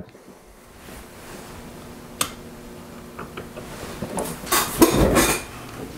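Handling and movement noise as a seated man swivels his office chair toward a microscope and reaches for it: one sharp click about two seconds in, a few small ticks, then rustling and shuffling at about four to five seconds, over a faint steady hum.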